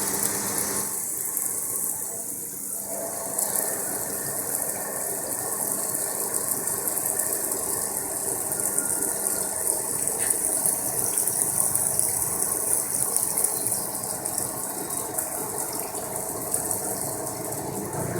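CNC wire-cut EDM machine running through a cut: a steady mechanical clatter with a strong hiss.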